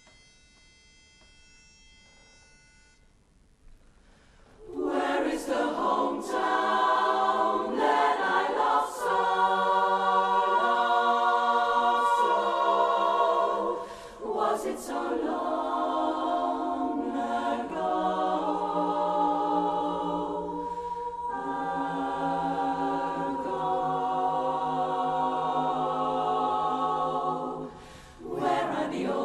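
A faint pitch-pipe note sounds for about three seconds. Then, about five seconds in, a women's barbershop chorus starts singing a cappella in close harmony, breaking briefly between phrases twice.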